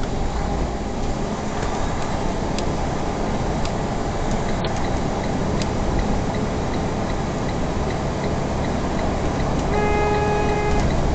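Steady road and engine noise inside a moving truck's cab, with a faint regular ticking. Near the end, a steady electronic beep sounds for about a second.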